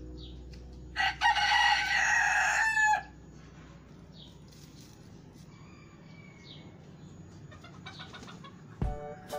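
Golden Sebright bantam rooster crowing once: a loud crow of about two seconds beginning about a second in. It is followed by a quieter stretch with a few faint high chirps and a dull thump near the end.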